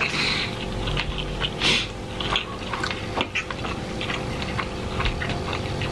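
Close-miked chewing and wet mouth sounds of people eating roast chicken and noodles, a steady run of small irregular clicks and smacks, with hands pulling apart the chicken.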